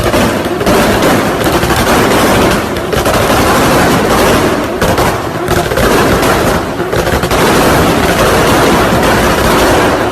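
Turbocharged Toyota Supra's exhaust firing a rapid, continuous string of loud bangs and crackles from its anti-lag system, in runs broken by short lulls every couple of seconds.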